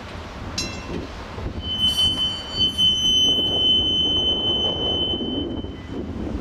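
PCC streetcar's steel wheels squealing against the rails, one steady high-pitched squeal that starts about a second and a half in and lasts about four seconds, over the low rumble of the car rolling.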